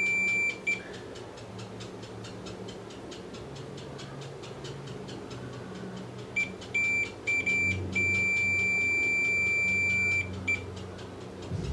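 Digital multimeter's continuity beeper sounding one steady high tone each time the probes close a near-zero-ohm path on the TV circuit board. There is a half-second beep at the start, then after a pause a few short broken beeps and a long beep of about two seconds.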